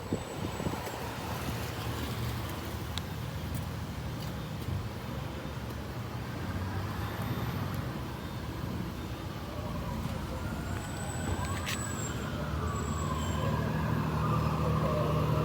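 An emergency vehicle's siren wailing, its pitch rising and falling, coming in about halfway through and growing louder, over the steady low rumble of vehicle engines.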